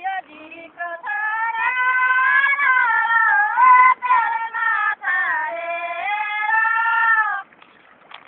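One high voice singing a rice-planting (asare) song in long, held, gliding notes, with a couple of short breaths. It starts with a few short notes, and the singing stops shortly before the end. The sound is thin and has little treble.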